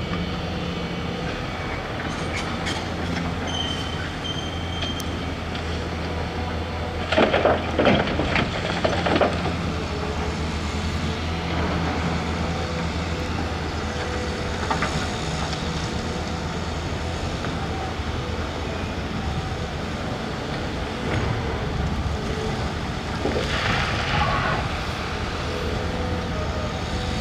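Tracked hydraulic excavator's diesel engine running steadily, with a short high squeal about three seconds in. Loud metallic clanking and rattling comes in bursts about seven to nine seconds in and again around twenty-four seconds.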